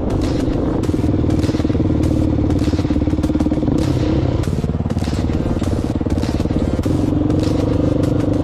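Dirt bike engine running at a steady speed on a dirt track, with small clicks and clatter from stones and dirt. The engine note drops a little about halfway through and rises again near the end.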